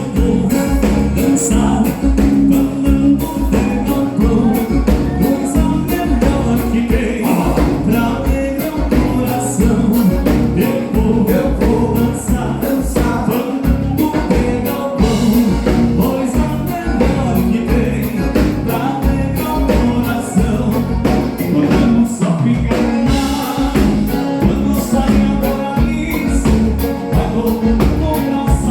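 Live gaúcho band playing a bugio, with a singer over a steady dance beat.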